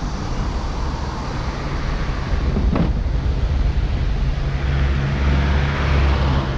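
Wind buffeting the microphone and road noise from a moving scooter, growing louder partway through, with one brief knock about three seconds in.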